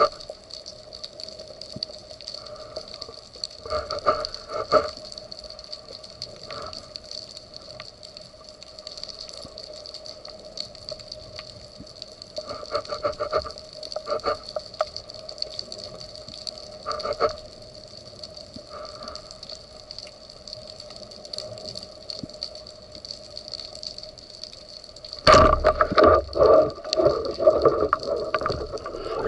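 Underwater sound picked up by a camera mounted on a speargun during a breath-hold dive: a faint steady hum with a few soft knocks. About 25 seconds in, a loud rush of churning water starts suddenly and runs to the end.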